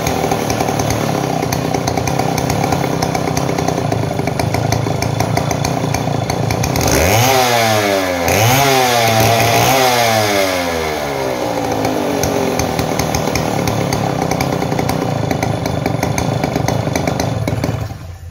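Model 070 chainsaw's two-stroke engine running at a steady idle, revved up and down a few times about seven seconds in, then settling back and cut off just before the end, on a test run after repair for loss of power and backfiring.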